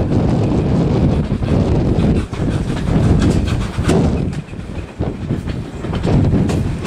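Steam-hauled train running, heard from an open carriage window: the steady rumble of the coaches and the LNER A4 steam locomotive working at the head, with a few sharp clicks in the second half.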